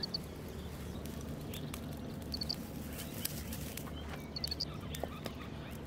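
A small bird repeating quick bursts of three or four high chirps about every two seconds, over scattered crackles of dry straw and twigs catching fire.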